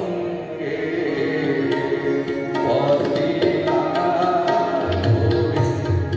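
Indian devotional music: tabla playing a steady rhythm under a wavering melody line, with deep bass-drum strokes coming in near the end.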